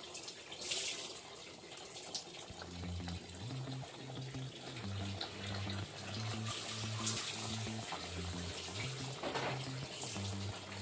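A pot of broth boiling on a gas stove: a steady bubbling hiss, with a low hum that comes and goes from about two and a half seconds in.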